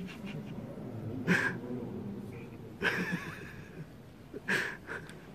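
A person close by gives a few short breathy snorts of stifled laughter at irregular intervals, over a low murmur of people in the hall.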